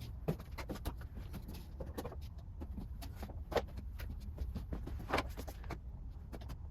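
Scattered knocks and clatter of objects being moved around and set down on a workbench as it is cleared, over a steady low hum.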